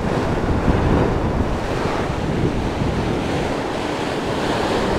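Ocean surf breaking and washing over the shore rocks, with wind buffeting the microphone: a steady, fairly loud rush of noise.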